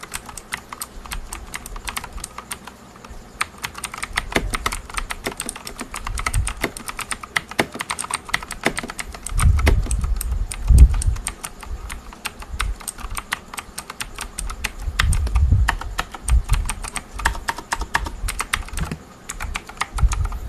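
Fast typing on a RAKK ILIS mechanical keyboard with clicky Outemu Blue switches: a dense, continuous clatter of key clicks. Heavier low thuds come in around the middle and again about three quarters of the way through.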